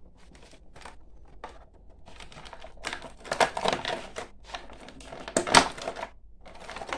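Stiff clear plastic blister tray of toy packaging crackling and clicking as an action figure is worked out of it by hand: a rapid run of crisp crackles that grows louder about three seconds in and stops briefly near the end.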